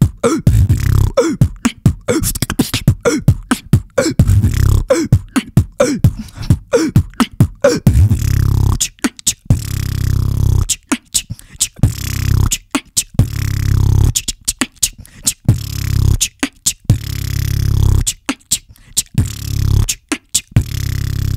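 Solo beatboxing into a handheld microphone in a trap style: kick drums that drop in pitch, sharp snare and hi-hat clicks in a fast rhythm, and from about eight seconds in, long held vocal bass notes between the beats.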